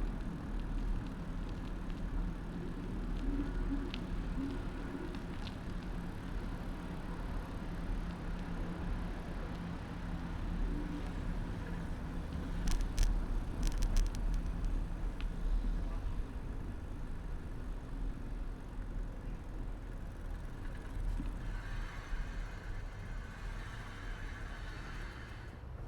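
Ride noise from a bicycle on city streets, picked up by a handlebar-mounted camera: a steady low rumble with car traffic around it. There are a few sharp knocks about halfway through and a higher whine for several seconds near the end.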